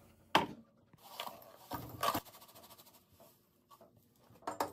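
Laundry powder being poured between containers, with a few soft knocks as a ceramic cup and glass vase are handled, and a faint hiss of pouring powder in between.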